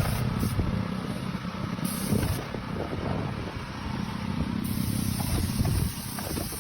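A vehicle or machine engine running with a low, uneven rumble.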